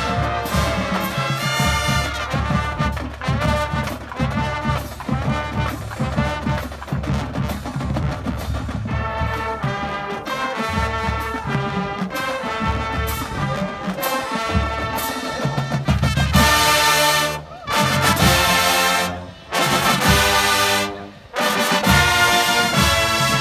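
Marching band playing: brass section over the drumline. In the last several seconds the full band plays loud accented blasts, cutting off abruptly three times.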